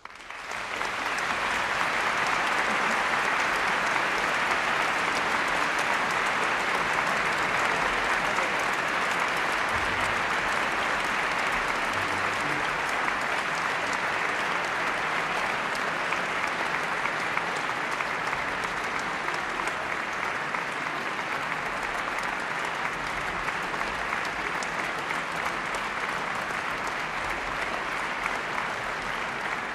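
Concert audience applauding, starting abruptly and holding steady, easing a little in the second half.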